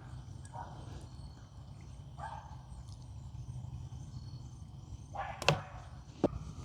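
Light scrapes and clicks of small hand tools working on the end of a coax cable, with a sharp click about five and a half seconds in and another just after six seconds.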